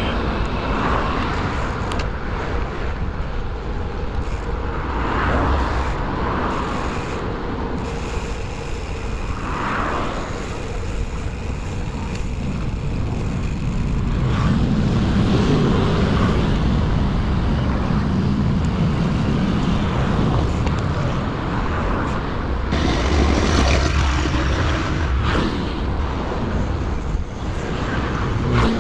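Wind rushing over the microphone of a bicycle-mounted camera while riding on a city road, with motor traffic and scooters going by. The low rumble grows heavier about halfway through, when scooters crowd the lane ahead.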